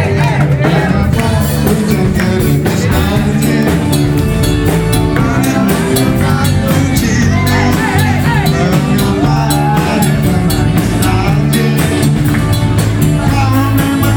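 A live band playing a song with electric bass and drums, amplified over loudspeakers, while a man sings the melody into a microphone.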